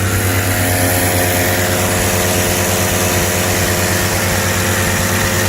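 1982 Ford Granada's straight-six engine idling steadily, cold and on the choke, just after its first start on a freshly rebuilt carburetor.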